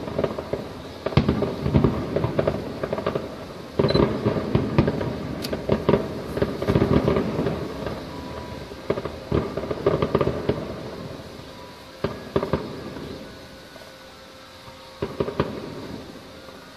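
Fireworks display: aerial shells bursting in a rapid series of bangs and crackles. The bangs thin out after about twelve seconds, with a few separate ones near the end.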